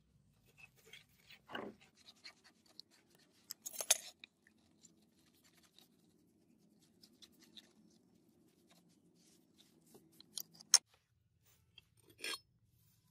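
Wire brush scrubbing a rusted Persian sword blade in short, irregular scratchy strokes, with a few sharper clicks and knocks as the metal blade is handled.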